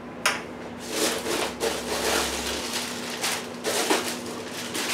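Refrigerator's freezer door pulled open with a click, then a plastic bag of frozen vegetables rustling and crinkling as it is taken out of the freezer.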